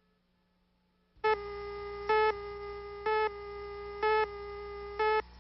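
A steady electronic tone starts about a second in, swells into louder beeps about once a second (five in all), and cuts off just before the end, leaving a low hum.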